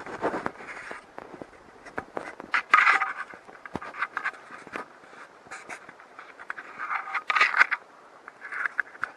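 Irregular scraping and rubbing with scattered light knocks and clicks, the sound of someone moving about and handling a camera in a cramped fiberglass compartment. The louder scratchy bursts come about three seconds in and again near the end.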